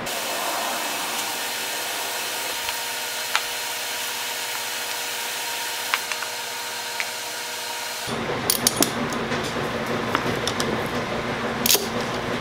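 Light taps and rubs of small wooden box parts being handled over a steady hiss. From about eight seconds in, clicks and rattles of metal bar clamps being set against the glued-up box.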